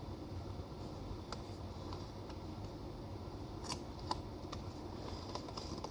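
A few faint clicks and light handling noise from plastic card packaging being worked at to free a metal trading card from its insert.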